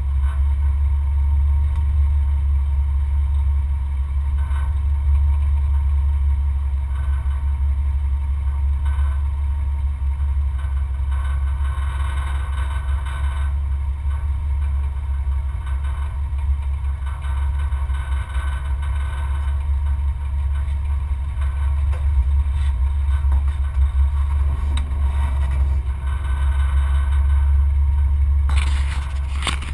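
Off-road 4x4's engine idling steadily, picked up by a camera under the chassis, with a few light clatters from the vehicle. Near the end a short burst of brighter noise comes in.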